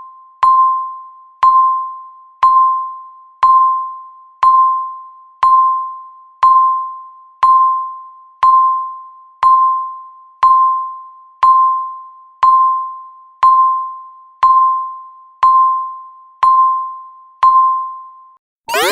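Countdown timer tick: a short electronic ping at a single pitch, once every second, each striking sharply and fading fast. At the very end the ticking stops and the loud alarm breaks in with fast, repeated rising sweeps as the timer hits zero.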